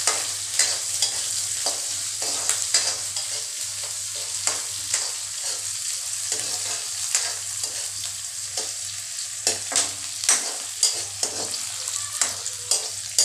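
Chopped onion, garlic and green and red chillies sizzling in hot oil in a kadhai, with a spatula scraping and stirring against the pan again and again. A faint steady low hum runs underneath.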